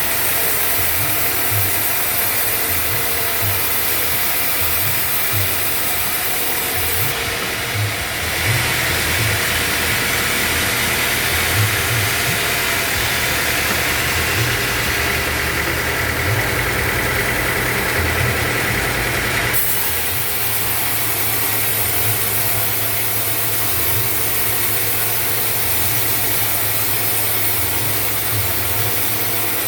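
Band sawmill running steadily, a constant motor drone with a hissing whine of the saw; from about 8 to 20 s in the hiss grows stronger, then drops back abruptly.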